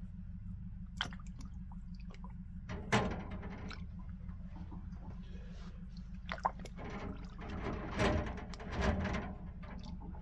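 A steady low hum, with scattered knocks and a clatter of parts being handled, loudest about 3 s in and again around 8 to 9 s.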